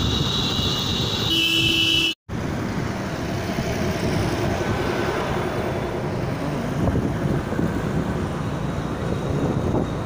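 Road and traffic noise heard while riding a two-wheeler through traffic, with wind on the microphone. A vehicle horn sounds steadily for the first couple of seconds, then the sound cuts out for an instant before the traffic noise continues.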